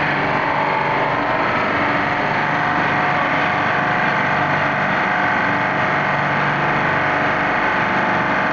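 Tube ice machine's refrigeration plant running: a steady, constant mechanical hum with several unchanging tones.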